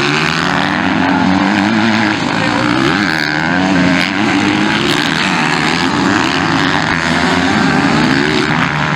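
Several MX2-class motocross bike engines revving hard as they race through corners. Their pitches overlap and rise and fall with throttle and gear changes.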